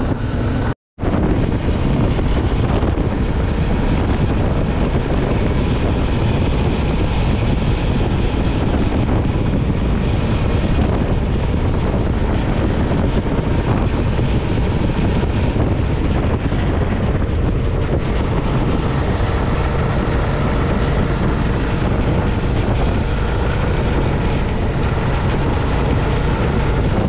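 Wind noise rushing over the microphone of a motorcycle camera, with the bike's engine and tyre noise underneath, riding steadily at road speed. The sound cuts out briefly about a second in.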